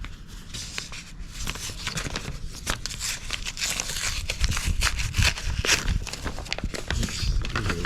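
Sealed paper envelope being torn open and the paper inside handled: a dense run of tearing and rustling, busiest in the middle.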